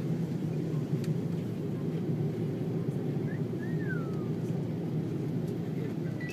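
Steady low rumble of an Airbus A330's engines and airflow, heard inside the passenger cabin while the airliner taxis after landing. A faint short falling whistle sounds a little past the middle.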